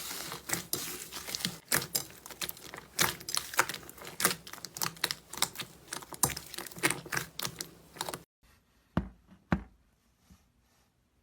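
Slime being squeezed and pressed by hand, giving a dense run of crisp crackling clicks. About eight seconds in it switches to a much quieter stretch with a few single sharp clicks.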